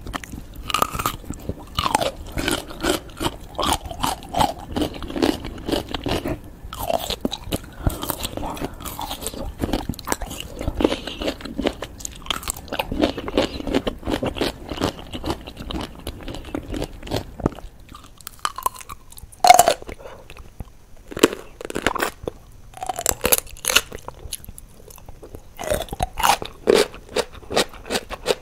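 Close-miked biting and chewing of whole pickles: a run of sharp crunches, one after another, with quieter chewing between.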